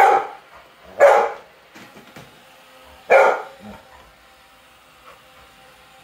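A dog barking at a robot vacuum: three sharp barks, at the start, about a second in and about three seconds in. It is the agitated barking of a dog enraged by the machine. After the barking stops a faint steady hum remains.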